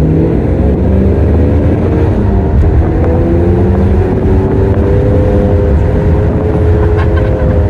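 Car engine and exhaust running under load: a deep, steady drone with an exhaust note that rises slowly in pitch, as when a car pulls away and accelerates gently.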